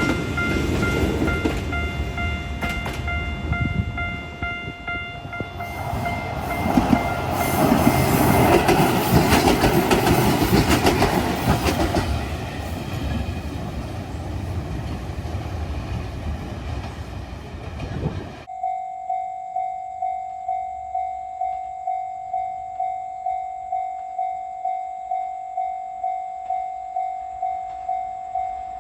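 A train runs past a level crossing, its wheels and running gear loud, with the crossing bell's steady ringing faint beneath it. About 18 seconds in the sound cuts to a Japanese level-crossing alarm ringing on its own, a clanging tone repeating about one and a half times a second.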